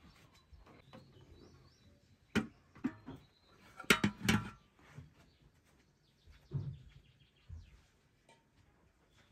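A few sharp knocks and metallic clinks, loudest about four seconds in, as the metal lid of a large steel pot is lifted and handled. Faint bird chirps sound in the background.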